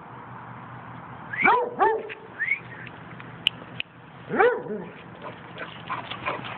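Basset hound giving short, arching bays: two close together about a second and a half in, a brief one just after, and another about four and a half seconds in. A sharp click sounds a little after three seconds.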